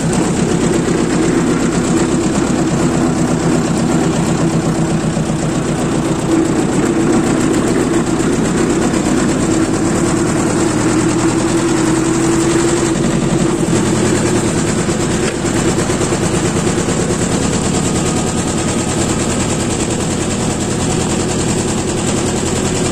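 Tractor engine running steadily under way, with a fast, even chugging beat. The engine note shifts slightly about thirteen seconds in.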